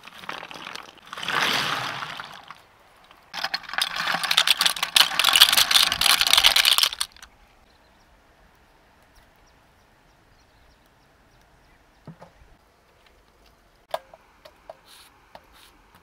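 Leaves scrubbed hard against the outside of a soot-blackened clay pot, in two rough, scratchy bouts, the second longer and louder. Near the end come a few sharp clicks with a brief ringing, from a knife cutting taro stems over a clay pot.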